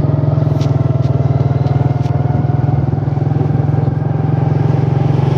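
Vehicle engine running steadily close by, its pitch creeping slowly upward, with a few faint clicks over it.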